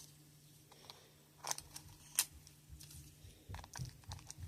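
Light handling of a plastic fashion doll and its small accessories: a few sharp clicks about one and a half and two seconds in, then soft low knocks near the end.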